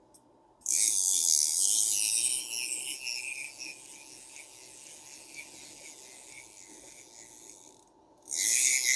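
Garcia Mitchell 410 high-speed spinning reel cranked hard, its rotor whirring with the rapid buzzing rattle of the clicker. The whir fades gradually as the reel coasts down, and a second short crank comes near the end. There is no bearing noise, only clicker and gear noise.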